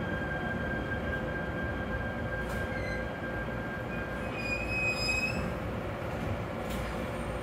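Local train running on the rails, heard from inside the passenger car: a steady rumble of wheels on track with thin whining tones, and brief high wheel squeals about halfway through.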